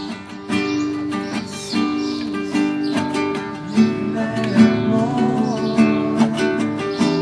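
Music led by a strummed acoustic guitar, chords changing steadily with no voice.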